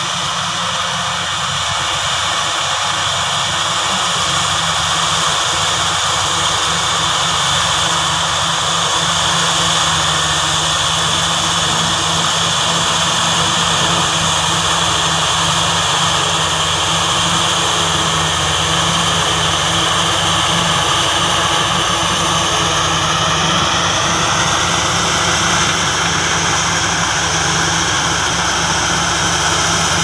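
Crawler bulldozer's diesel engine running steadily as it pushes earth, mixed with a working excavator. A high whine sits over the engine and rises a little in pitch late on.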